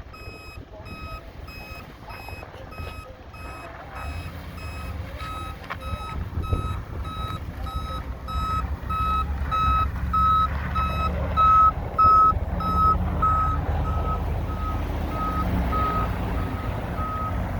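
A truck's backup alarm beeping steadily about twice a second, loudest around the middle, with a vehicle engine running underneath from about four seconds in.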